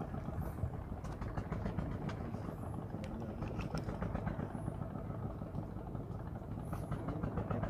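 A boat engine running steadily at a low, even idle.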